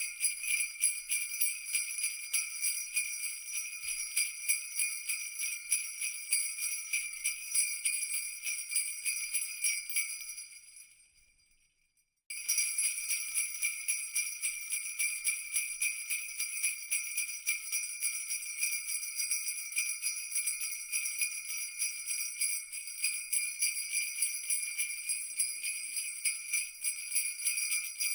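Jingle bells shaken steadily in a dense, continuous jingle. The jingling fades out about ten seconds in, falls silent for about a second, then starts again abruptly.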